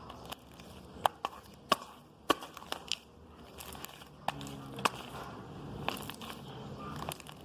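Sticky fluffy slime made with glue and shaving cream being squeezed and kneaded by hand, giving irregular sharp pops and crackles every fraction of a second over a soft squelching.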